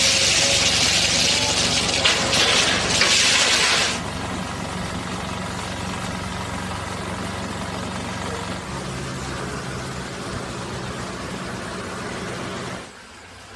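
Distant diesel engines of track-construction machinery, excavator and trucks, running with a steady hum. A loud rushing noise lies over them for the first four seconds, then cuts off abruptly. The whole sound drops quieter just before the end.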